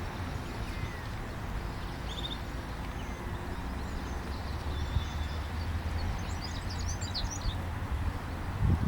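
Outdoor background noise with a steady low rumble, and a few faint bird chirps about two seconds in and again around seven seconds.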